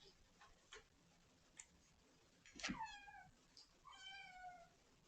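A kitten meowing twice: a short call about halfway in that drops in pitch, then a longer call that slides slightly down. A few faint ticks come before them.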